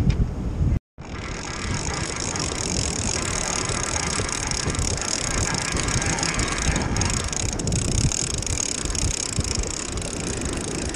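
Wind buffeting the microphone over surf washing against jetty rocks, with the steady whir of a spinning fishing reel being cranked in. The sound drops out completely for a moment about a second in.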